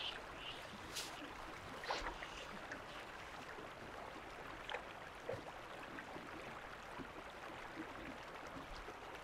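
Faint river ambience: water gently lapping and gurgling around a boat on the river, with a few soft ticks.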